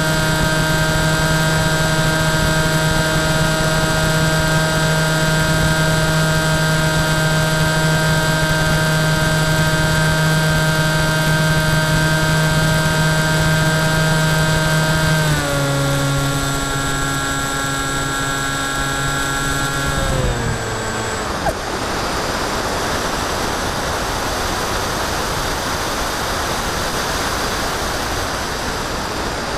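Phantom FX61 flying wing's electric motor and propeller whining at a steady pitch, heard from the onboard camera. About halfway through the pitch steps down as the throttle is eased, and a few seconds later the motor winds down and stops, leaving only wind rushing past as the wing glides.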